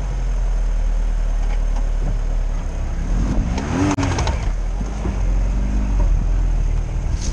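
Lada Niva's four-cylinder engine, heard from inside the cabin, revving up and down over and over as it crawls off-road, with a knock about four seconds in.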